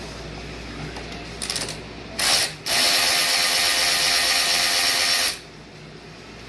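Power ratchet running in two pulls: a short burst about two seconds in, then a steady run of about two and a half seconds that stops sharply, loosening fasteners on an engine being removed.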